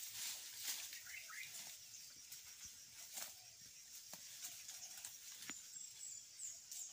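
A goat grazing and stepping in dry leaves and brush: scattered small snaps and rustles, with a few faint high bird chirps over a quiet outdoor background.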